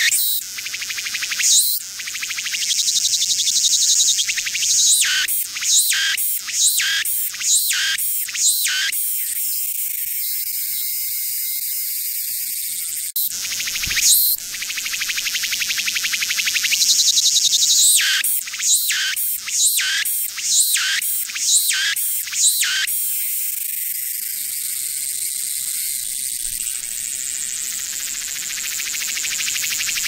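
A cicada singing close by: runs of repeated swelling notes, about two a second, alternating with long steady drones, high-pitched and loud.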